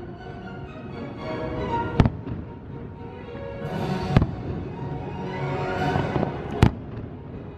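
Fireworks shells bursting: three sharp bangs roughly two seconds apart, over the fireworks show's music.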